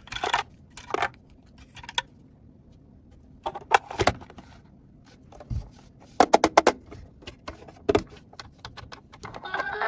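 Small plastic toy pieces being handled, clicking and tapping against each other, with a quick run of clicks about six seconds in.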